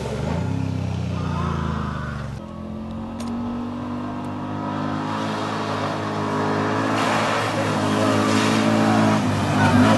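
Side-by-side UTV engine running as the vehicle drives along a dirt track. The sound drops abruptly about two and a half seconds in, then grows steadily louder as the vehicle comes closer.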